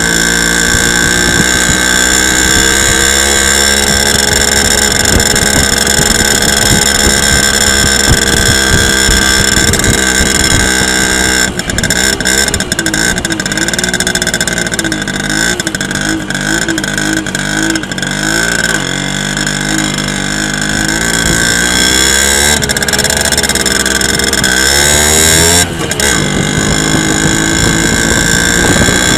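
Simson S50's 50 cc two-stroke single-cylinder engine running under way on a test ride, after a new carburettor float and new contact breaker points cured its stalling. The engine note is steady at first, wavers up and down through the middle, dips briefly near the end, then picks up and runs steady again.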